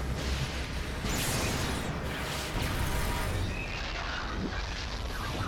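Cartoon explosion sound effects: a continuous heavy rumble with a whoosh about a second in.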